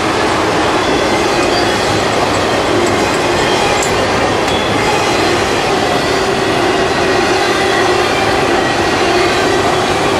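Freight train of autorack cars rolling past at close range: a steady, loud din of steel wheels on rail.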